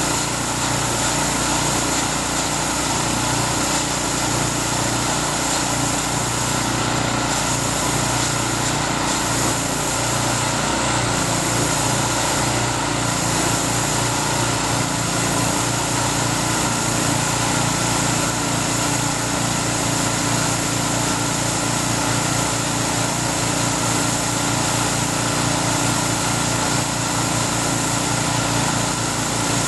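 Small engine of a Takakita SW1100W self-propelled crawler bale wrapper running steadily while it turns a round bale of rice silage and wraps it in stretch film.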